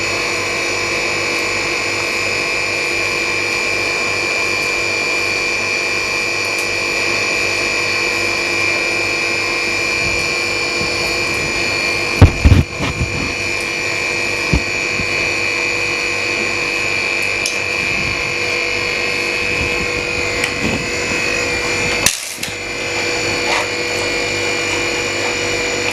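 LCD freezer separator machine running with a steady electric whine, its motor and fan holding an even pitch. A single sharp knock about halfway through.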